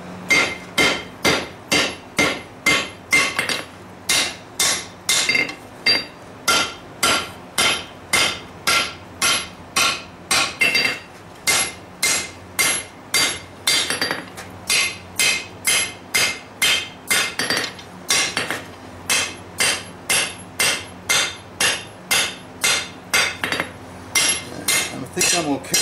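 Hand hammer forging the steel of a lawn mower blade on an anvil in a steady rhythm of about two blows a second, each blow ringing brightly. A faint steady hum runs underneath.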